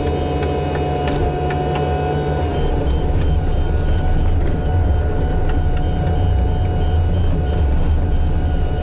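Volvo excavator's diesel engine running steadily under load, heard from inside the cab, with a steady hydraulic whine as the boom and bucket swing a load of ready-mix concrete. Scattered light clicks of machinery run through it.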